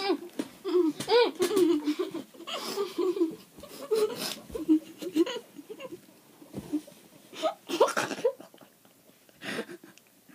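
Two girls laughing in repeated bursts, with a short lull about two thirds of the way through before a last few high laughs.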